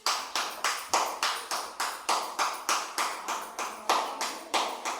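One person clapping hands steadily at about four claps a second, the signal for the children to keep passing the disc.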